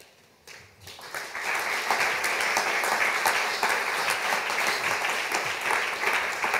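Audience applauding, building up within the first second or so and then holding steady.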